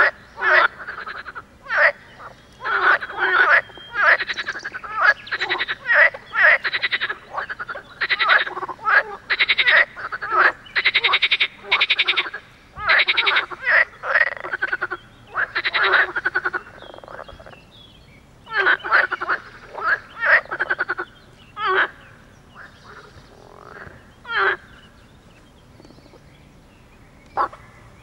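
Green water frogs calling in chorus: rapid rattling croaks in bursts of about half a second to a second, overlapping densely for roughly the first sixteen seconds, then thinning to scattered single calls near the end.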